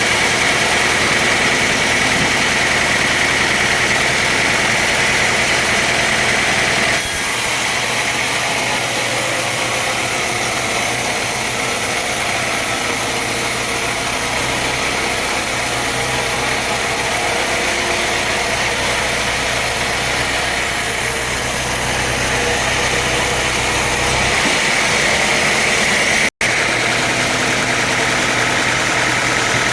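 Sawmill machinery running steadily with a motor hum. The sound changes abruptly about 7 seconds in and again near 24 seconds, and drops out for an instant a little after 26 seconds.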